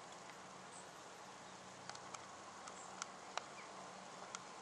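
Faint, steady outdoor background hiss with a low hum underneath, and a handful of short, sharp ticks about two to four seconds in.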